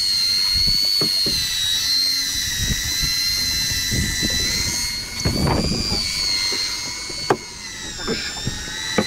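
A boat engine running with a steady high whine that wavers slightly in pitch, over low rumbling, with a sharp knock about seven seconds in.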